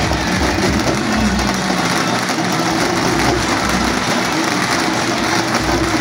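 Loud, steady din of a large street crowd, a dense wash of noise with no single voice standing out.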